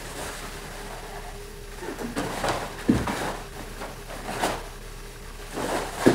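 Karate gi swishing and snapping with several quick strikes and blocks, and a thud about three seconds in, over a faint steady hum.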